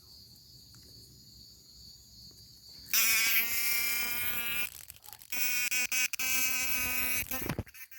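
A cicada (chiquirín) giving its loud, buzzing call close by. The call starts suddenly about three seconds in and comes in two bouts with a short break, over a steady high-pitched chorus of more distant insects.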